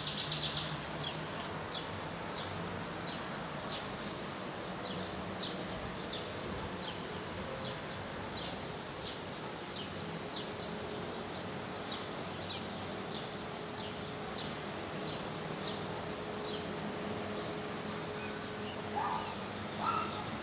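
Outdoor ambience: short high bird chirps repeating throughout over a low steady hum of distant traffic, with a steady high-pitched whine for several seconds in the middle. About a second before the end a dog starts barking.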